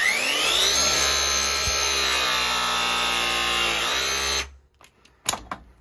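Milwaukee M18 Force Logic battery press tool pressing a 1 1/2-inch copper press fitting: the motor winds up in pitch, runs steadily for about four seconds, sags slightly in pitch and cuts off as the press cycle completes. Two short clicks follow near the end.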